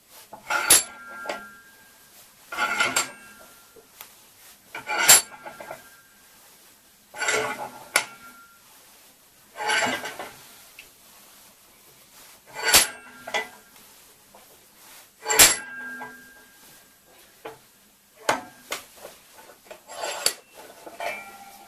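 Sharp steel-on-steel clanks at a heavy bench vise, with a short metallic ring, a cluster of one or two knocks about every two to three seconds.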